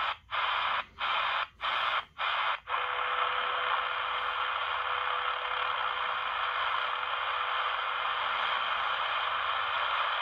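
Static hiss from a Hanrongda HRD-747 shortwave receiver, muting briefly five times in the first three seconds as it is stepped a megahertz at a time. It then settles on 20 MHz, where steady static carries a faint steady tone: WWV's 500 Hz time-station tone.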